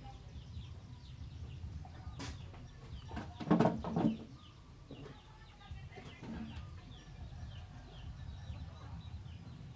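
Faint, short, high chirping calls repeated throughout, with one louder call about three and a half seconds in, over a steady low rumble.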